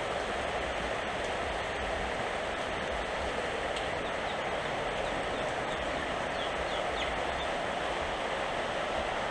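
Heavy rain pouring down, a steady even hiss that holds at one level throughout.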